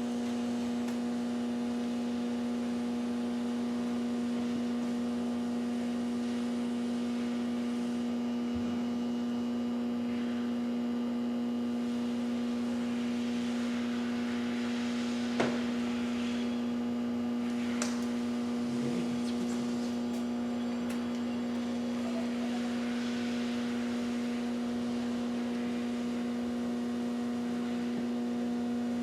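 Metal lathe running with a steady electrical hum. A faint hiss of the tool cutting steel comes and goes in the middle, and there is a single sharp click about fifteen seconds in.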